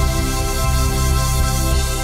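Instrumental background music with sustained notes over a low bass.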